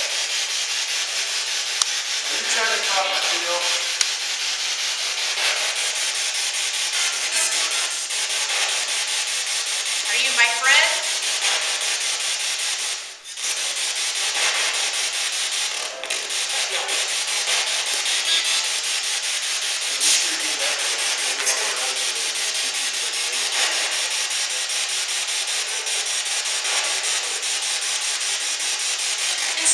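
Radio-sweep spirit box scanning through stations: a steady hiss of static chopped finely by the rapid sweep, with brief snatches of radio voice a few times.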